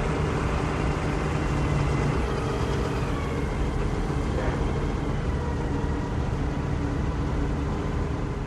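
Shipyard and seaport ambience: a steady, dense drone of engines and machinery with several steady hum tones running through it, a low hum dropping out about two seconds in, and the whole beginning to fade near the end.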